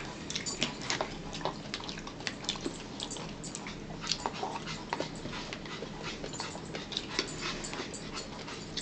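A metal spoon scraping and clicking against the inside of a plastic bowl, in many short irregular ticks, along with eating sounds.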